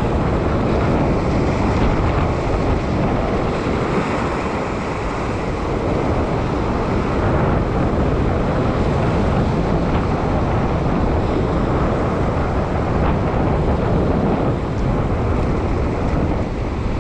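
Steady wind rumble on the microphone over waves washing and breaking on sea rocks.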